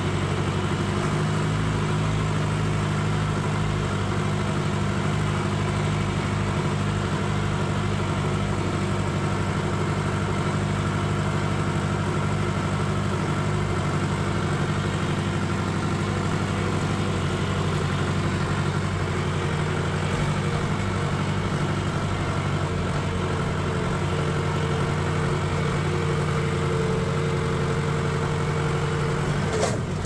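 Farm tractor engine running at a steady low speed as the tractor drives across a field, with a brief click near the end.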